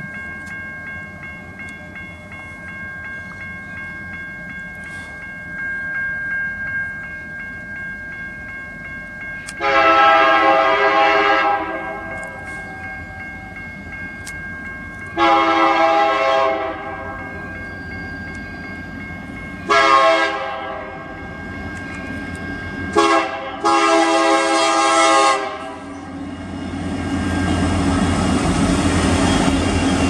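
Horn of the lead Union Pacific EMD SD70M diesel locomotive sounding the grade-crossing signal: two long blasts, a short one and a long one, on a chord of several notes. Near the end the locomotives' diesel engines and wheels on the rails rise to a loud rumble as the lead units pass.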